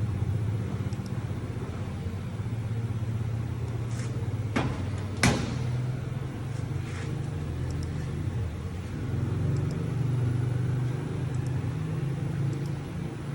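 CNC machine running with a steady low hum, with a sharp click about five seconds in.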